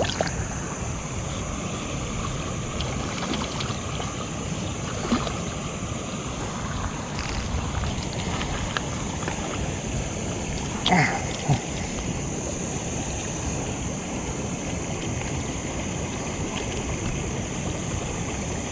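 Steady rushing of a flowing trout stream, with a short faint sound about eleven seconds in.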